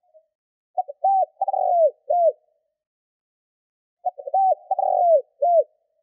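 Spotted dove calling twice, about three seconds apart. Each phrase is a few quick short notes, a longer coo that falls in pitch, and a short closing note.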